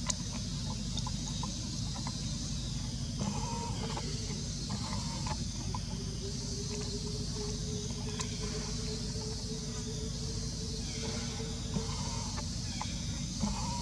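Steady outdoor background of low rumble and high hiss. A faint, long, even tone runs through the middle, and a few faint short chirps come and go.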